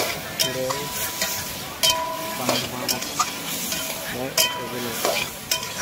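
Metal spatula scraping and knocking against a heavy metal kadai as pork pieces are stirred, sizzling and frying in the hot pan. The scrapes come about once a second over a steady sizzle.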